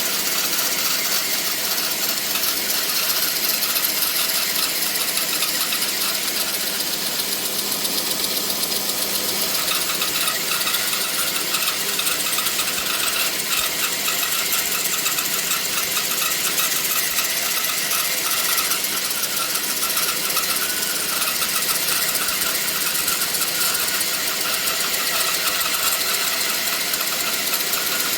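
A ShopSmith bandsaw running steadily at about 1,000 RPM while its blade slowly resaws a walnut board lengthwise.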